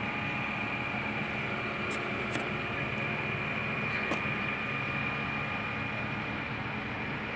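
A steady machine hum with a thin, high-pitched whine, unchanging throughout, with a few faint clicks around two and four seconds in.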